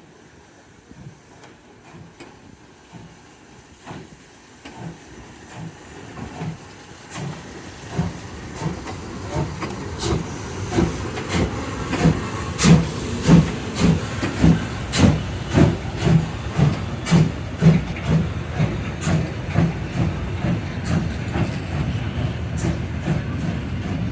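Steam locomotive chuffing, its exhaust beats growing louder over the first half and then holding steady at about two a second, with a hiss of steam behind them.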